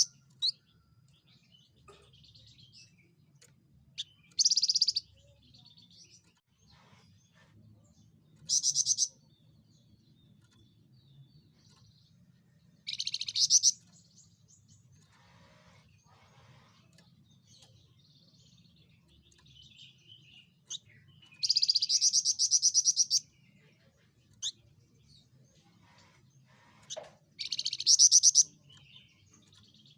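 Javan fulvetta (Alcippe pyrrhoptera) singing: short, high, rapid trilled phrases repeated every few seconds, with one longer phrase about two-thirds of the way through.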